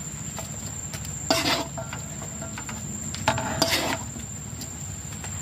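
Metal spatula scraping and clinking against a wok and a plastic plate as fried noodles are scooped out, a few separate strokes, the loudest about a second in and again between three and four seconds in. Under it runs a steady high-pitched whine.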